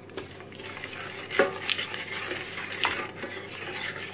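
Wooden spoon stirring melting margarine, sugar and syrup in a stainless steel pot, scraping around the pot with a few knocks against its side.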